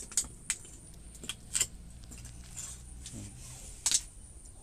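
Iron tongs clinking and scraping against scraps of metal: a handful of sharp metallic clinks, the loudest near the end.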